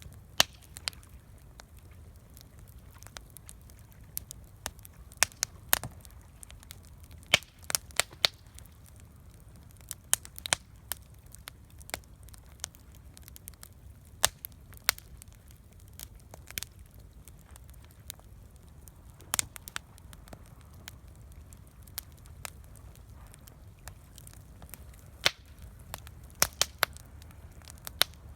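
Wood campfire crackling: sharp, irregular snaps and pops, sometimes several in quick succession, over a faint steady low rumble.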